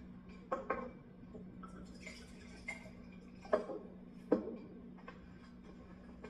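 A few sharp, irregularly spaced clicks over a low steady hum.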